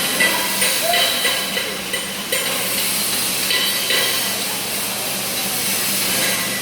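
TIG welding arc hissing steadily, with a steady low hum underneath.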